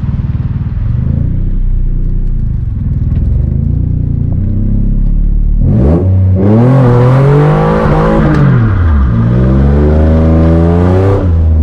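Nissan 350Z's 3.5-litre V6 running at low revs, then about six seconds in revved hard, the pitch sweeping up, dipping and climbing again, with a loud hiss of spinning tyres on wet road, as the car breaks loose into a drift. It drops back off the throttle just before the end.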